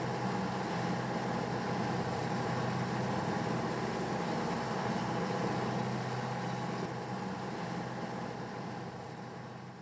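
Sailboat's auxiliary engine running steadily under way, a constant hum over wind and water noise, fading near the end.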